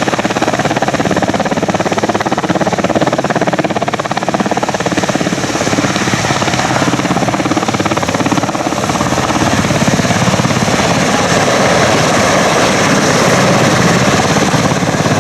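Westland Sea King helicopter flying, with the fast, steady chop of its main rotor over the whine of its twin turboshaft engines, growing a little louder in the second half.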